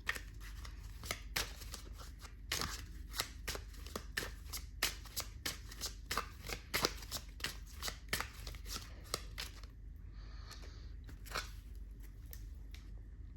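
A deck of tarot cards being shuffled by hand, a quick run of papery card clicks and slaps that eases off about ten seconds in.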